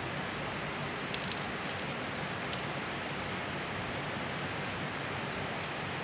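Steady background hiss, with a few faint light clicks about one to two and a half seconds in as a small screw is unscrewed by hand from a lathe's compound slide and set down on a concrete floor.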